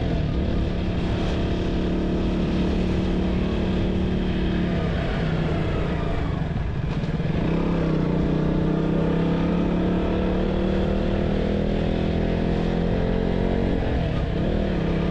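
Motorcycle engine running under way, steady and loud. Its pitch drops about five seconds in, climbs again a few seconds later, and dips briefly near the end.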